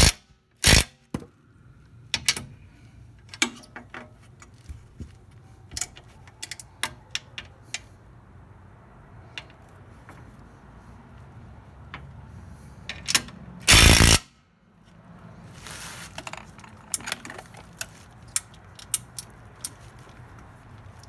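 Cordless impact driver fired in short bursts on a 6 mm Allen button-head bolt of a rear sway bar: twice right at the start and once for about half a second near the middle. Sharp clicks and metal clinks of tools being handled in between.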